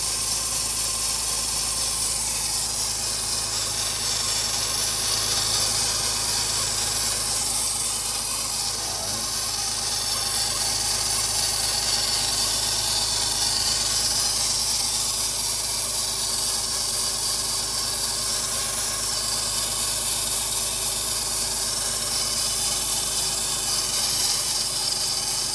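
Nissan 350Z's 3.5-litre V6 idling with a steady high hiss over a few steady tones: an unidentified engine-bay noise that the owner suspects comes from one of the belt-driven pulleys.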